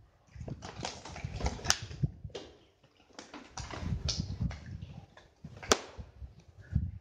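Handling noise close to the microphone: rustling from a knit work glove with scattered clicks, knocks and low thumps. Two sharp clicks stand out, about two seconds in and just before six seconds.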